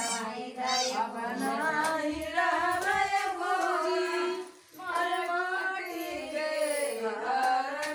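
A group of women singing together, a Teej devotional song to Bholenath (Shiva), with a brief break in the singing about four and a half seconds in.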